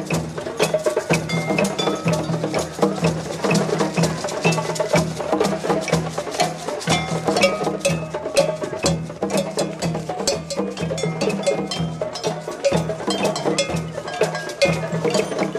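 A group of djembes and other hand drums played together by many hands in a drum circle: a dense, steady rhythm of sharp slaps and deep bass tones.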